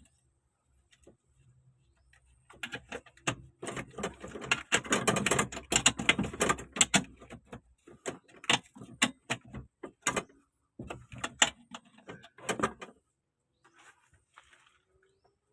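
Hand tools working on metal car parts: a dense stretch of rapid clicking and rattling begins about two and a half seconds in, then gives way to scattered single clicks and clanks.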